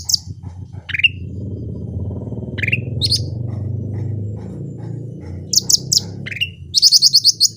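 Cucak rante songbird calling: short notes that sweep upward, and quick runs of high, sharp notes, the longest and loudest run near the end. A low steady hum sits underneath through the middle.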